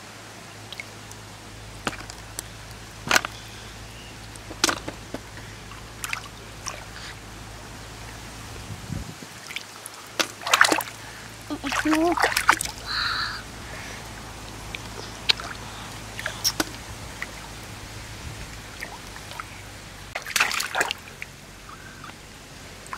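Shallow muddy water sloshing and splashing in short, irregular bursts, with drips, as hands work through the mud for snails. The bursts are busiest about halfway through, with another cluster near the end.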